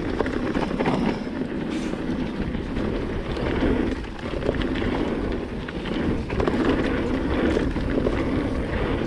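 Wind rushing over the microphone while a mountain bike rolls fast down a rocky, gravel trail: steady tyre and wind noise, with a few sharp knocks and rattles as the bike hits stones.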